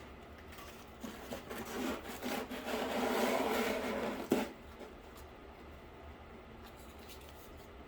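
Cardboard pieces being handled, rubbing and sliding against each other for about three seconds and ending in a sharp tap. After that come only a few faint light ticks.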